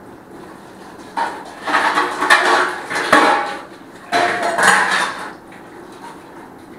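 Dishes being washed by hand at a kitchen sink: metal utensils clattering and being rinsed, in two spells of a second or two each, with a sharp clink partway through the first.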